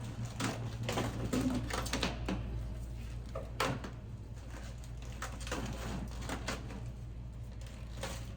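Scattered clicks and knocks of snack packs and products being handled and set into vending machine slots, over a steady low hum.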